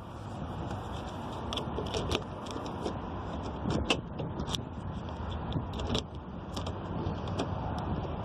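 Car keys jangling with scattered sharp clicks, as a freshly cut Citroën Berlingo key is tried in the lock, over a steady background hiss.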